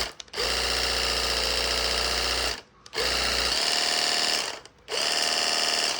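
Cordless portable car pressure washer's motor and pump running with a steady whine in three bursts, stopping briefly twice and for good at the end, each restart starting with a quick rising spin-up. The inlet hose is out of the water, so the pump is clearing the last water trapped in the hose.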